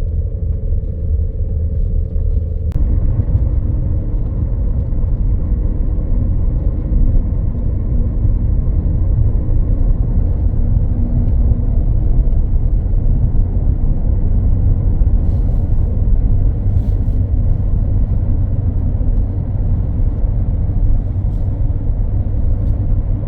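A motor vehicle running with a steady low rumble, as heard while driving. The sound changes abruptly about three seconds in and cuts off near the end.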